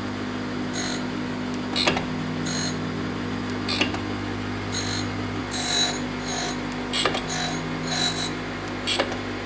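Jones & Shipman 540 surface grinder running with a steady hum, while its freshly dressed wheel skims a steel flange in repeated short hisses of grinding. A few sharp clicks are heard along the way.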